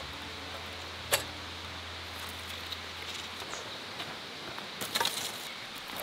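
Metal camp gear being handled: a sharp metallic clink about a second in as a hurricane lantern hanging on a stick stand is taken in hand, and a few lighter knocks and clicks near the end, over a steady background hiss. A low held music note fades out about halfway through.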